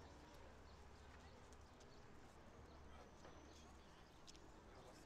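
Quiet outdoor ambience with faint footsteps on pavement and a low hum that fades out about four seconds in.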